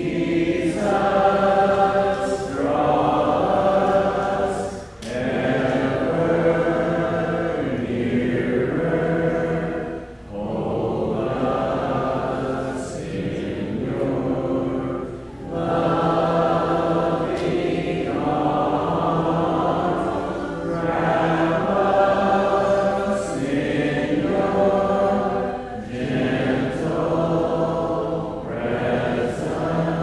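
Church congregation singing a hymn unaccompanied in several-part harmony, in long held phrases with brief pauses for breath between them.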